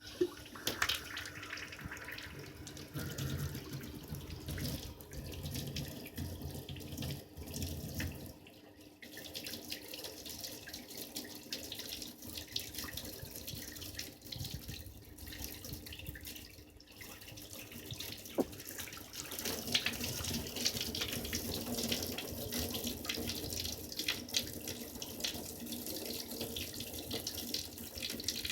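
Hot-water tap running into a sink, with water flowing from the supply after a repair to the pipes. The flow eases briefly about a third of the way in and runs louder for the last third.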